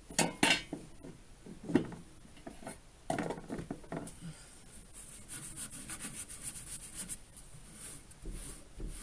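Wax being rubbed by hand onto a freshly turned laurel-wood mushroom: a few knocks and taps of handling, then quick back-and-forth rubbing from about five seconds in.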